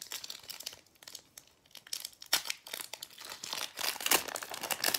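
Foil wrapper of a Pokémon trading card booster pack crinkling and tearing as it is pulled open by hand: irregular crackles, loudest about two seconds and four seconds in.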